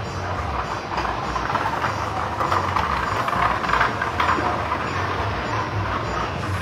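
Steady low engine rumble with a rushing hiss, growing louder from about a second in and easing again after about four and a half seconds.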